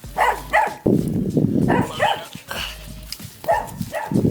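A dog barking in quick pairs of barks, once near the start and again about three and a half seconds in.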